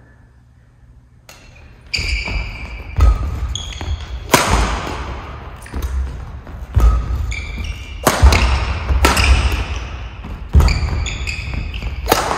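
Badminton singles rally in a large hall: about eight sharp racket strikes on the shuttlecock, one every second or so, each ringing in the hall. Court shoes squeak and footsteps thud on the wooden floor between the strikes. The rally starts about two seconds in, after a quiet moment.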